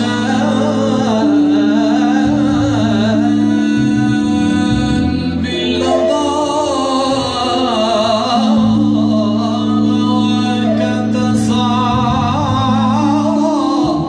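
A man singing a slow Arabic song into a microphone, his voice wavering through long ornamented lines over held low notes from a small band of oud, ney flute and keyboard.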